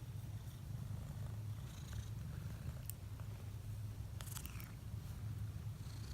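Domestic cat purring steadily close up, with a few faint clicks about three and four seconds in.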